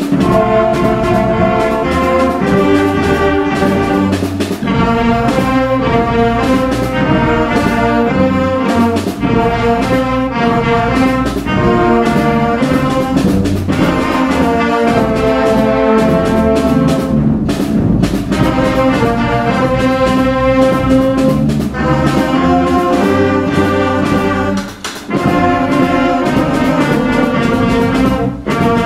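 A sixth-grade school band of saxophones, trombones, trumpets, tuba and drums playing a rock-style tune: loud held horn chords over a steady drum beat, with a brief drop in volume near the end.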